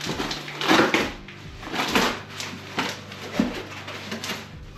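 Gaming chair parts and their packaging being handled: several short bursts of rustling and scraping, about a second apart.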